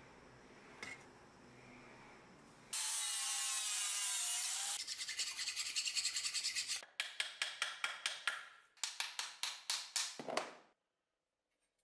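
Quiet workshop with a faint click, then a steady hiss for about two seconds, then a file scraping back and forth on an ash handle blank in three quick runs of strokes.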